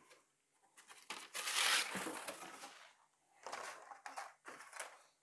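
Crinkling and rustling as a beeswax foundation sheet is handled and laid into a wooden hive frame, loudest for about a second and a half in the middle, with shorter bursts near the end.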